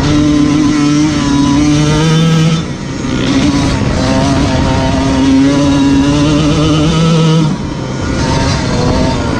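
Dirt bike engine running hard under throttle, its note climbing a little. The note drops briefly about two and a half seconds in and again near the end, then picks back up.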